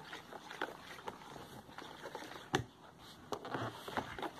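A plastic spatula stirring a liquid fabric-softener base in a bowl: soft swishing with scattered clicks and knocks as it hits the side of the bowl, the loudest about two and a half seconds in.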